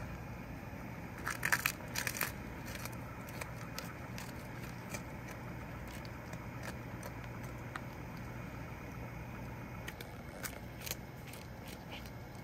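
A cat chewing and crunching a whole capelin, a quick run of crunches about a second and a half in, scattered single crunches after, and another run near the end. A steady low hum sits underneath.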